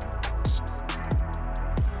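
Background music with a steady drum beat: a deep kick drum about every two thirds of a second over quick ticking cymbals and sustained chords.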